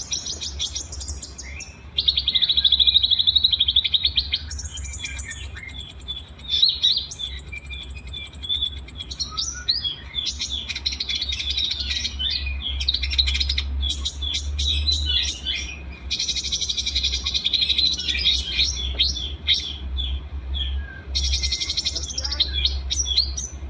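Several small songbirds sing in fast, high-pitched trills and chirps. The recordings are cut together in sections that change abruptly every few seconds, over a steady low hum.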